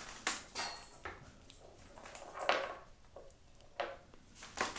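Light clicks and knocks of small objects being handled on a wooden dresser top, about half a dozen scattered over the seconds, the loudest about two and a half seconds in.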